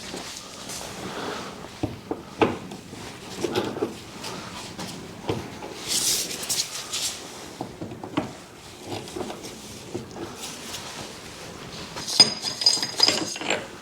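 Hand tools and metal parts clinking and knocking while the bolts of a BMW E46 rear subframe are being undone with an 18 mm wrench or socket. There is a short hiss about six seconds in, and a run of ringing metal clinks near the end.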